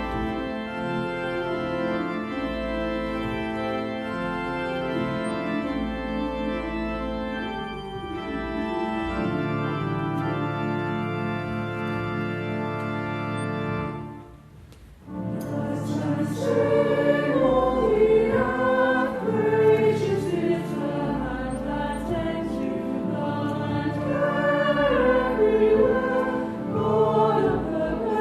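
Organ playing sustained chords; after a short break about halfway, a choir sings a hymn over organ accompaniment.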